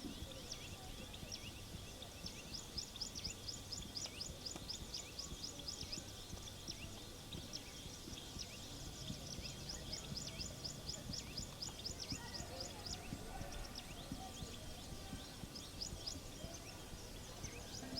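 A bird calling in long, rapid runs of short, high, sharp notes, about four to five a second, that pause and then resume near the end, over a low steady background.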